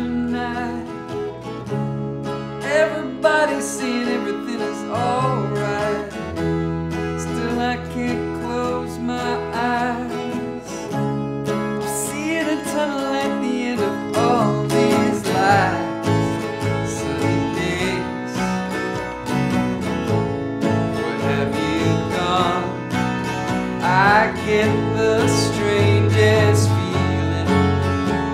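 Twelve-string acoustic guitar strummed in steady chords over an electric bass line, with a man singing the melody: a two-piece unplugged pop-rock song.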